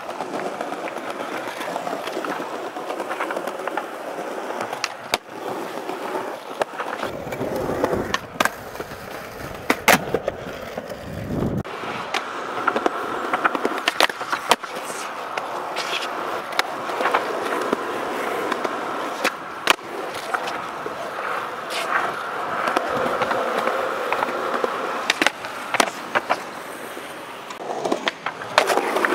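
Skateboard wheels rolling over concrete and pavement, with a dozen or so sharp clacks of the board popping and landing, and the trucks scraping along a curb ledge about halfway through.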